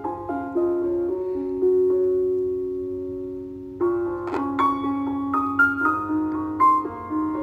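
Background piano music: soft notes and a held chord that slowly fades, then a new phrase of notes beginning a little past halfway.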